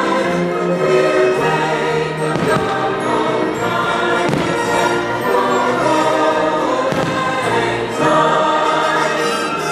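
Music with a choir singing long, held chords.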